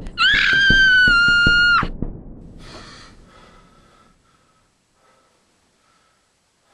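A loud, high-pitched scream held on one pitch for about two seconds, cut off sharply. A short breathy gasp follows a little later, while faint echoes of the scream fade away.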